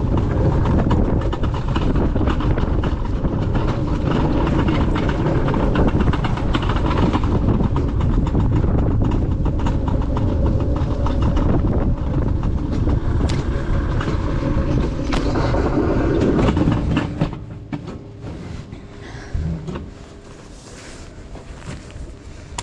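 Alpine coaster sled rumbling and rattling along its metal rail track. The rumble falls away sharply about three-quarters of the way through as the sled slows.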